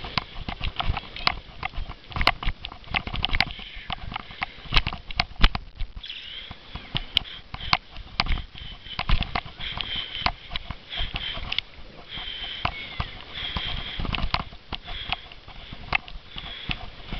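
Cyclo-cross bike jolting over rough grass, with many sharp rattles and knocks from the bike, and the rider breathing hard in short, repeated breaths.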